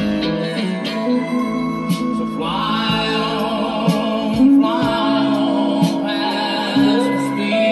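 A song playing: instrumental accompaniment with a sung melody coming in about two and a half seconds in, in a few phrases.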